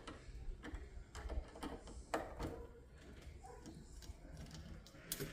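Scattered small clicks and knocks of metal door-lock hardware being unscrewed and handled, one sharper knock about two seconds in and another near the end.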